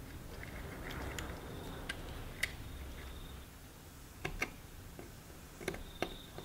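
A handful of light, sharp clicks and ticks, some in quick pairs, as long-nose pliers grip and bend a resistor's wire lead around a turret on a turret board.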